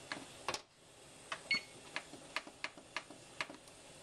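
Electric oven's control panel being pressed: a run of short clicks as the plus button steps the preheat temperature up to 375, with one short electronic beep about one and a half seconds in.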